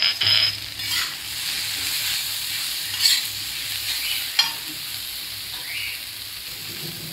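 Spice masala frying on a tawa, sizzling steadily, with curry leaves just added. A spatula scrapes and knocks against the tawa a few times as the masala is stirred.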